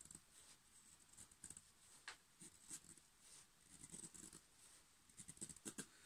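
Anglo Arms UK-legal slip-joint folding knife shaving curls off a wooden stick to make a feather stick: a series of faint, irregular scraping strokes of the blade along the wood.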